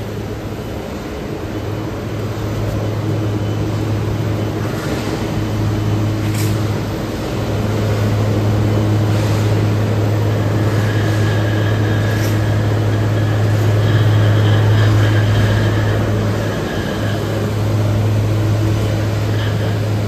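Steady low hum of the electric-motor-driven machinery of a rotary biochar carbonization furnace line, with its feed conveyor and drum drives running. There are a few faint knocks, and a thin high whine joins about halfway through.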